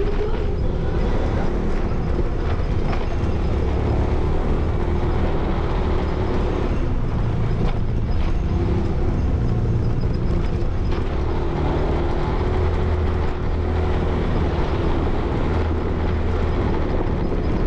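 Motorcycle engine running at low riding speed, a steady low hum whose pitch rises and falls slightly, with scattered small clicks and knocks from riding over a rough dirt and gravel track.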